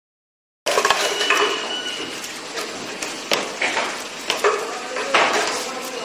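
Irregular clicks and clinks of small metal and plastic parts as a bobbin is fitted onto the spindle of an HF-5808 coil-winding machine, over a steady workshop noise. The sound starts abruptly under a second in.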